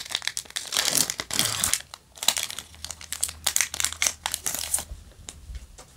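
Foil booster-pack wrapper of Yu-Gi-Oh! trading cards being torn open and crinkled in the hands, a dense run of crackling. It dies down about five seconds in as the cards come out.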